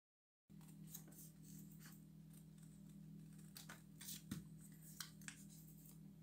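Scissors snipping through a folded sheet of paper to cut out a heart, a few quiet irregular snips with some paper handling, over a steady low hum.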